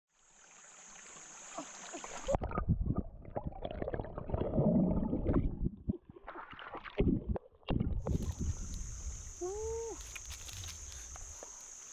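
A steady high-pitched insect drone, broken about two seconds in by loud splashing and sloshing of water as hands grope through a shallow rocky stream for snails. The splashing stops about eight seconds in and the insect drone returns, with a brief call near the end.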